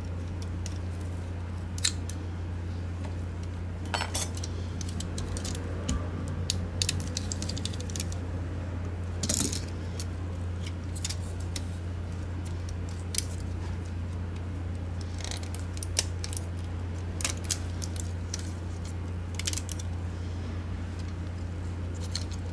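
Small plastic parts of a Logitech G604 mouse being pried apart with tweezers and set down: scattered sharp clicks and taps, heaviest around the middle, over a steady low hum.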